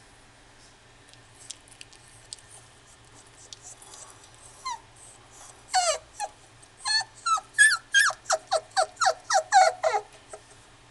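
Long-haired miniature dachshund puppy whining and yelping in a quick run of short, high calls that each drop in pitch. The calls start about five seconds in, speed up to about three a second, and stop near the end, with a few faint scratchy clicks before them.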